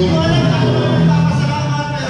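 Loud music with a singing voice.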